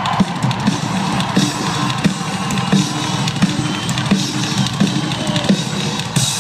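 Live rock band playing loud through an arena PA, the drum kit to the fore with regular kick and snare hits over a dense band sound, heard from among the audience in a large reverberant hall.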